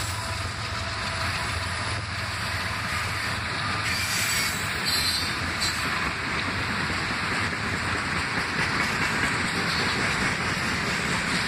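Freight train rolling past: the diesel locomotive's low engine hum as the last unit goes by, giving way to the steady rumble and clickety-clack of the freight cars' wheels on the rails, with a brief high wheel squeal about five seconds in.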